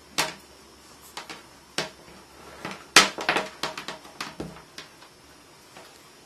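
Clicks and knocks of a plastic mains power adapter and its cord being handled on a wooden tabletop: scattered single knocks, the loudest about three seconds in, followed by a quick cluster of smaller clicks.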